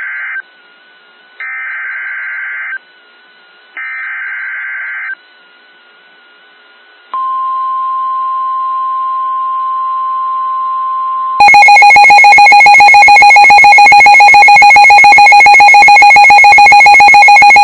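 Emergency alert signalling on NOAA Weather Radio: three short bursts of warbling SAME digital header data, a pause, then the steady 1050 Hz weather alert tone for about four seconds. About 11 seconds in it gives way to the louder two-tone EAS attention signal, which holds to the end. Together these announce a new severe thunderstorm warning.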